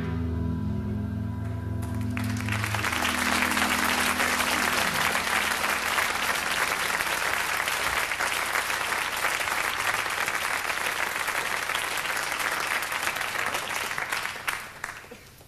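The band's last chord rings out and fades, and an audience breaks into applause that dies away near the end.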